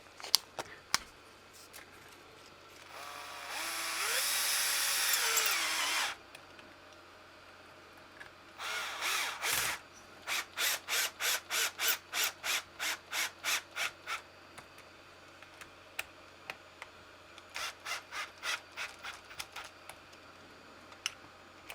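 Power screwdriver spinning for about three seconds while driving the screws of a hinge pin block on a hobby-grade RC truck, followed by a run of short, evenly spaced strokes, about two a second, and later a fainter run of similar strokes.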